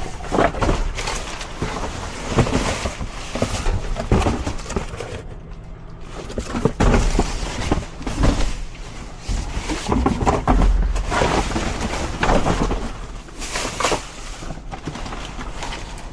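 Rummaging through trash in a dumpster: irregular rustling, clattering and knocking as items are handled and shifted, with a few low thumps.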